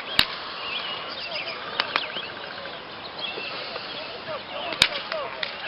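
Outdoor background: birds chirping over a faint murmur of voices, with a few sharp clicks, one about two seconds in and a louder one near the end.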